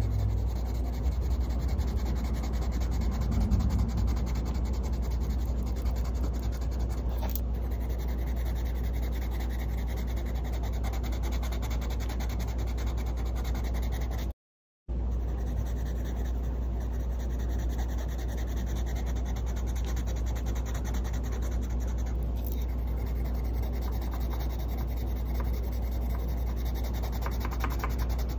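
Caran d'Ache Luminance wax-based coloured pencils rubbing back and forth on paper as colour swatches are filled in, a steady scratchy shading sound over a constant low hum. The sound cuts out completely for a moment about halfway.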